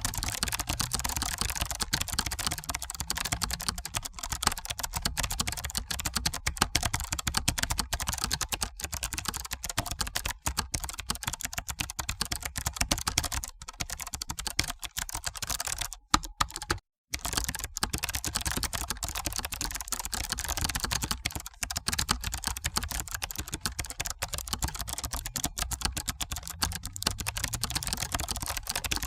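Rapid, continuous typing on a computer keyboard, a dense run of clicking keystrokes. It breaks off for a moment a little past halfway, then carries on.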